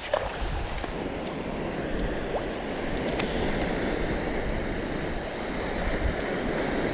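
Wind buffeting the microphone with a low rumble over the steady wash of surf on a reef, and a single faint click about three seconds in.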